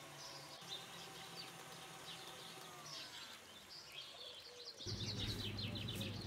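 Small birds chirping and twittering in the background throughout. About five seconds in, a steady low electric motor hum starts and gets louder: the stand mixer running as it beats cookie batter.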